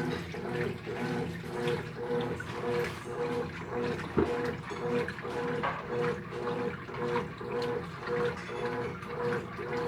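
Consul CWS12AB washing machine in its rinse cycle: water sloshing in the drum with a motor hum that pulses in an even rhythm. A single knock about four seconds in.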